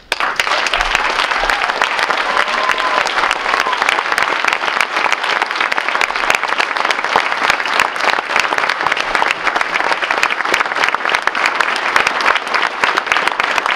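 A roomful of people applauding: dense, steady clapping that begins suddenly and stays loud.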